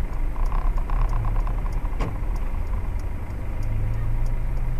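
Car engine idling, heard from inside a stopped car's cabin as a steady low rumble and hum, with faint regular ticking about three times a second and one sharp click about two seconds in.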